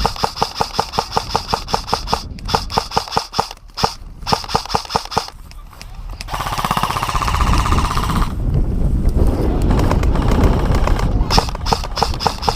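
Airsoft rifle firing long full-auto bursts, a rapid string of sharp cracks about ten a second. The firing stops for several seconds in the middle, where a steady buzzing and rustling takes over, then resumes near the end.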